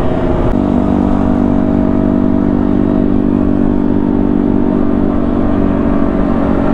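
Sport motorcycle engine running at a steady cruising speed, heard from the rider's seat with wind rushing past. The engine settles into an even drone about half a second in.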